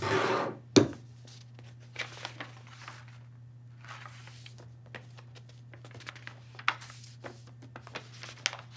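Paper rustling and crinkling as folded script pages are opened and handled on a wooden table, with one sharp knock on the table just under a second in. A steady low hum runs underneath.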